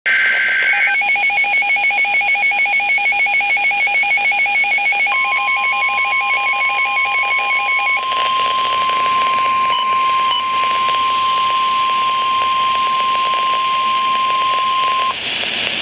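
NOAA Weather Radio alert tones for a severe thunderstorm warning: a brief warbling data tone at the start, then a receiver's alarm beeping rapidly, about five beeps a second, until about 8 seconds in. About 5 seconds in, the steady 1050 Hz weather-radio warning tone starts and holds for about ten seconds over a radio hiss.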